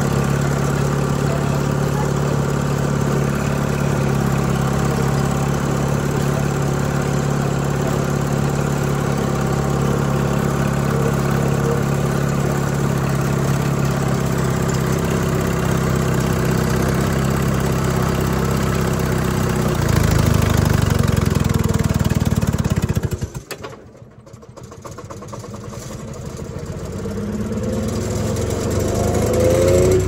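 Detroit Diesel 2-71 two-cylinder two-stroke diesel in an Allis-Chalmers HD5 bulldozer, running steadily under load. About 20 seconds in it labours harder, then it nearly stalls about 23 seconds in and picks back up with a rising pitch near the end.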